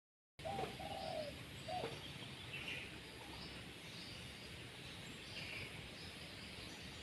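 Birds calling: a few short, low cooing notes in the first two seconds, then scattered higher chirps, over a steady background hiss.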